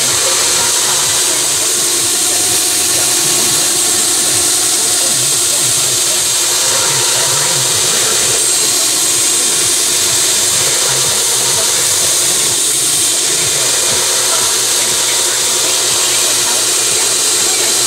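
Belt grinder running steadily with an even, unbroken hiss from the sanding belt.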